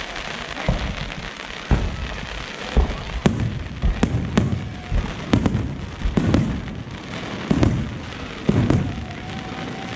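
Aerial fireworks shells bursting in quick succession, about a dozen deep booms and sharp bangs over some eight seconds, some in close pairs, with crackle between them.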